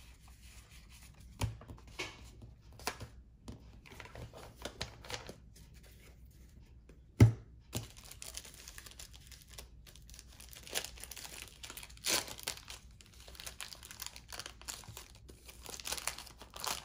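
Trading card pack wrapper being torn open and crinkled, with scattered light taps and clicks of cards being handled. One sharp knock about seven seconds in is the loudest sound.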